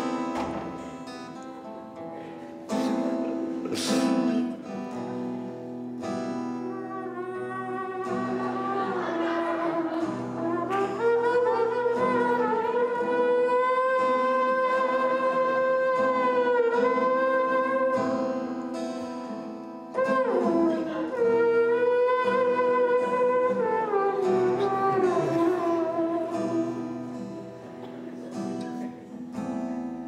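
Acoustic guitar accompaniment under a long, sliding lead melody produced at a microphone cupped in both hands at the player's mouth. There are a few sharp percussive hits in the first few seconds.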